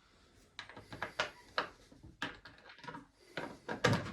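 Irregular clicks and light knocks as the bolts of a dirt bike's cover are started and lightly snugged up by hand, the knocks getting louder near the end.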